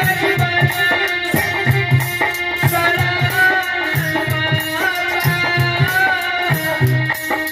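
Indian devotional folk music: a dholak drum plays a repeating hand-drum rhythm under sustained melody notes, with a man singing.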